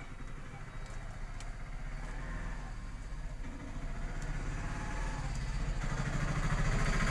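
A low, steady buzzing hum that slowly grows louder, with a few faint clicks.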